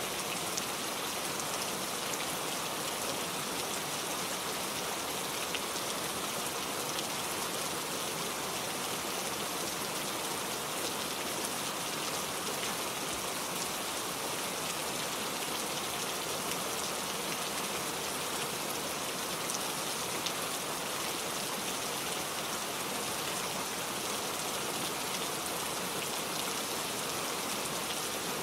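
Heavy, steady rain falling, a dense even hiss with many fine droplet patters and no lulls.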